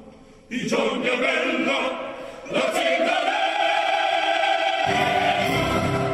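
Mixed choir of men and women singing at full voice with orchestra. After a brief lull the choir comes in about half a second in, then starts a new phrase and holds one long loud chord. The low accompaniment thins out under the chord and returns near the end.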